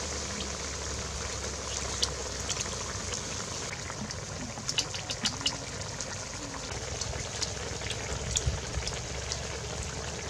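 Small clicks and crunches of people eating duck by hand and with a spoon from a bowl, over a steady outdoor hiss.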